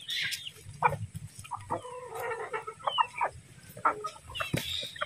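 Aseel chickens, roosters and hens, clucking with scattered short calls as they crowd around to be hand-fed.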